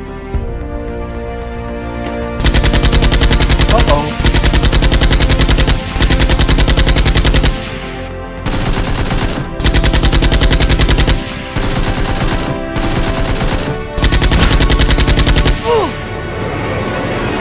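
Automatic-gunfire sound effect in repeated rapid bursts of a second or two each, beginning about two seconds in, over background music.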